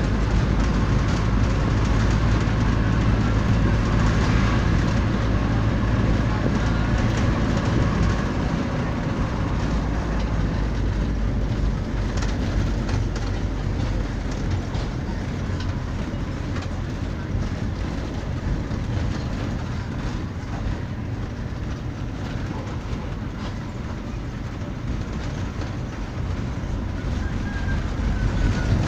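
A motor vehicle running steadily on a paved road, with a loud, constant low engine and road rumble that eases slightly about a third of the way through.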